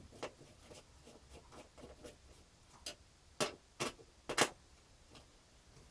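Screwdriver working a motherboard standoff screw in a metal PC case: scattered light clicks and ticks, with a few sharper clicks about halfway through.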